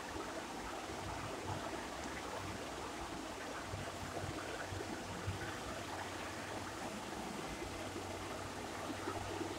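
Steady, quiet background hiss with a faint low hum underneath; no distinct events stand out.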